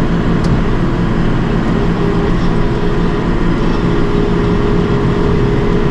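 A John Deere tractor's diesel engine runs steadily under load while pulling a working Krone hay baler.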